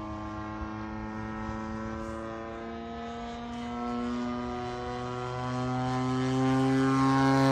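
Engine and propeller of a Hangar9 Pitts S-2B radio-control biplane in flight, a steady drone. Its pitch sags slightly a few seconds in, then climbs as it grows louder toward the end.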